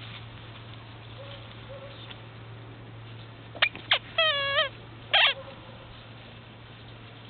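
Komondor puppies yelping and squealing while play-fighting. Two sharp yelps come about three and a half seconds in, a short wavering squeal follows at once, and another yelp comes about a second later.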